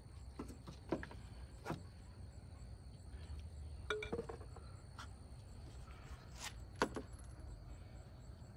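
Scattered light metallic clicks and clinks of parts being handled in a car's engine bay, irregular and a second or so apart, over a low steady rumble.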